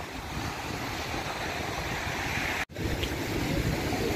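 Surf washing in on a beach under strong wind buffeting the microphone. The sound cuts out for an instant about two and a half seconds in, then the wind rumble carries on.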